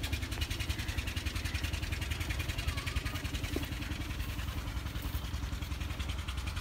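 Massey Ferguson 375 tractor's diesel engine running steadily, with a rapid, even beat.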